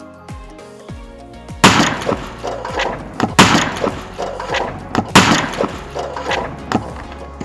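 Electronic dance music with heavy crashing hits about every second and a half and falling bass sweeps.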